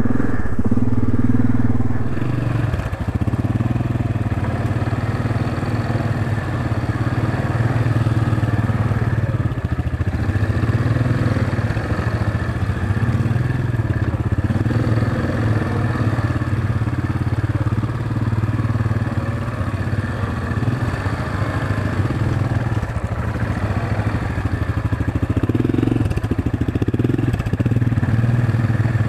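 Yamaha Grizzly ATV's single-cylinder four-stroke engine running steadily at low revs as the quad crawls over a rocky trail.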